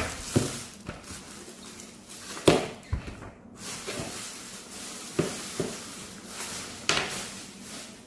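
Clear plastic bag crinkling and rustling as it is pulled off a humidifier, with several sharp crackles along the way.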